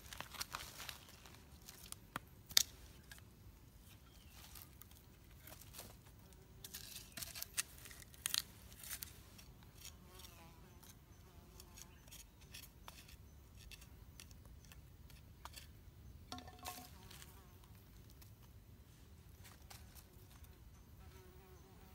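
Sharp clicks, crackles and rustles of dry sticks being handled and poked through cold campfire ash and dry leaf litter, busiest in the first half with the loudest snap about two and a half seconds in. Insects buzz faintly throughout.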